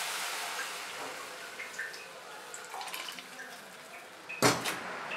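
Meat-boiling water poured from a steel bowl into a hot kadhai of frying meat. The hiss and splash of the liquid hitting the hot pan fades as the pan fills, and there is a brief clatter near the end.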